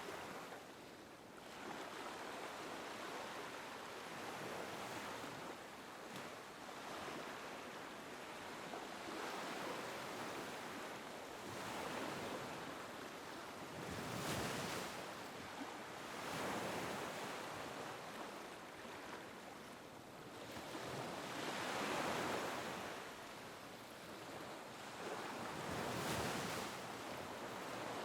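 Small waves lapping on a beach: a steady wash of surf that swells and falls back every few seconds as each wave breaks and draws back.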